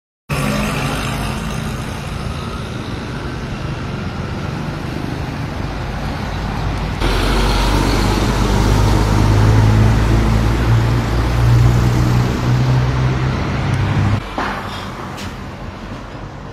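Street traffic noise with a vehicle engine's low hum close by. It gets louder about halfway through and drops off suddenly near the end.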